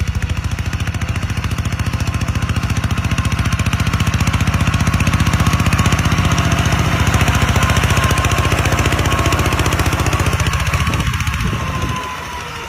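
Kubota RT140 single-cylinder diesel engine running with a fast, even chugging beat and a faint whine that slowly sinks in pitch. About eleven seconds in, the deep thump fades and the sound gets quieter.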